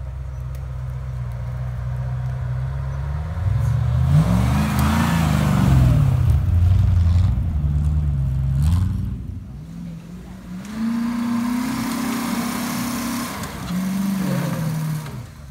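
Off-road Land Rover engines revving under load on a trial course, the pitch rising and falling again and again, loudest about four to six seconds in. About two-thirds of the way through, a second vehicle's engine takes over, revving in the same way.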